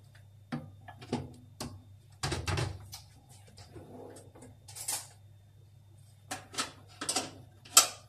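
Knocks and clicks of a microwave oven being loaded and shut: a dish set inside, the door closed with a cluster of thuds about two seconds in, then a run of clicks from the control buttons being pressed near the end.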